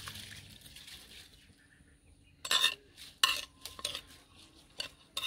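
Rice going into boiling water in a karahi: a short hiss that fades within the first second. Then a spoon scrapes and knocks against the karahi in about five sharp strokes as the rice is stirred.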